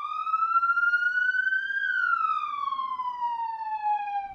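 A siren sounding one slow wail: the pitch rises for about two seconds, then falls gradually.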